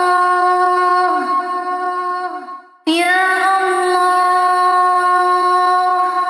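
A high voice chanting a supplication melodically in long held notes. The chant breaks off briefly about three seconds in, then starts a new phrase.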